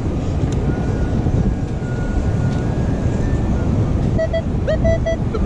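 Steady wind buffeting the microphone, and from about four seconds in a metal detector sounds two short, mid-pitched beeps over a buried target, a signal that sounds like a penny.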